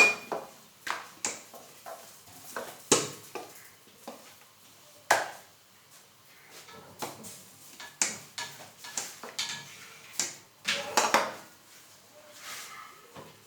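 Metal kitchen utensils and cookware clinking and knocking: a run of sharp, irregular clicks, some with a brief ring, the loudest right at the start.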